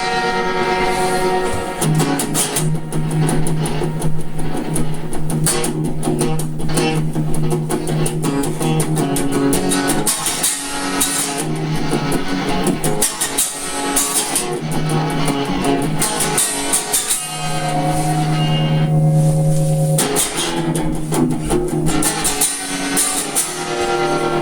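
Instrumental passage of a song with no singing: guitar strummed in a steady rhythm over a held low note.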